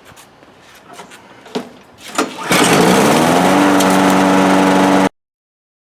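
A few light clicks and knocks, then a Briggs & Stratton single-cylinder lawn mower engine is pull-started and catches about two and a half seconds in, rising in pitch for about a second before settling to a steady run. It starts easily now that the replaced airbox gasket lets the primer work. The sound cuts off suddenly near the end.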